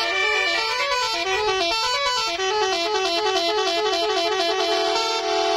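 Indonesian 'telolet basuri' multi-tone bus horn playing a quick tune of short stepping notes, ending on a long held note near the end.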